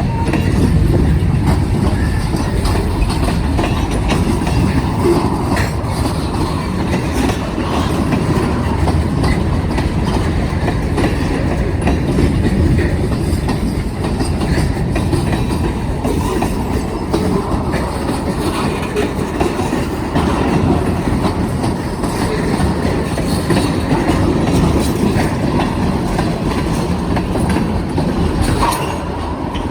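A BNSF manifest freight train's cars rolling past in a steady rumble, with their wheels clicking over the rail joints.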